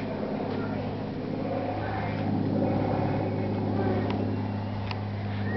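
A jet boat's inboard engine running steadily at a constant low speed, with a deep, even hum. A few faint, sharp ticks over it.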